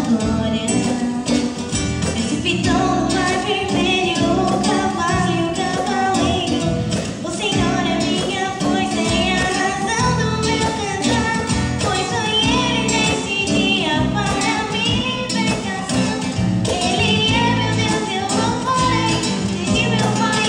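Church song at Mass: acoustic guitar accompanying a voice singing a steady melody, with regular strummed strokes throughout.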